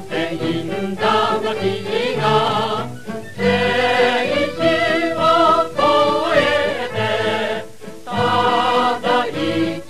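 A chorus singing a Japanese wartime patriotic march song from a 1944 broadcast recording, in phrases with short breaks between them.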